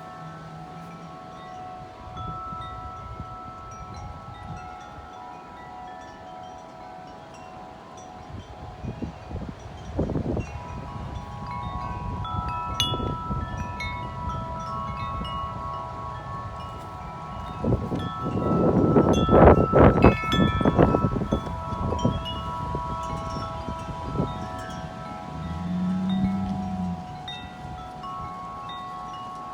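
Tubular wind chimes ringing continuously in strong wind, many tones overlapping. A hard gust a little past the middle buffets the microphone with wind noise while the chimes are struck more densely.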